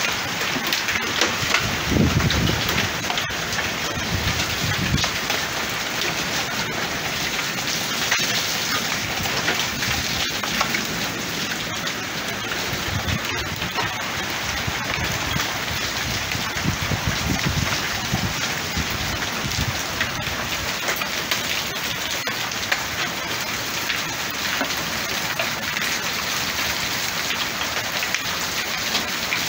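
Heavy downpour mixed with hail: a steady dense hiss of rain, peppered with many small sharp ticks of hailstones striking.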